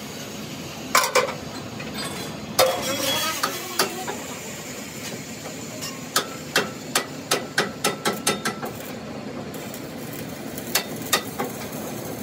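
Sharp metal knocks and clanks from a rolled steel wheel-rim band being worked, with a quick run of evenly spaced strikes, about three a second, in the middle. A steady workshop hum runs underneath.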